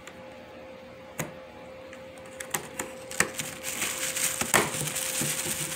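A cat clawing and pawing at a cardboard box: a few sharp taps, then a dense scratchy crackle of claws on cardboard through the second half. A faint steady hum runs underneath.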